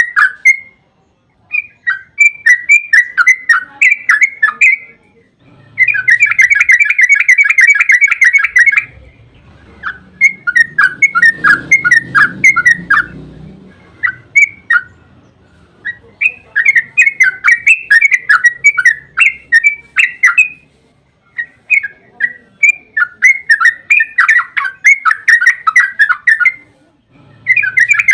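Yellow-vented bulbul (trucukan) singing in long, rapid bubbling chatters. Several bouts of a few seconds each are broken by short pauses, with the densest, fastest run about six seconds in.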